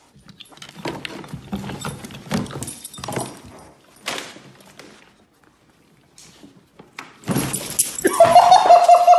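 Dogs playing rough and vocalising in short irregular bursts, with a long high-pitched cry near the end that is the loudest sound.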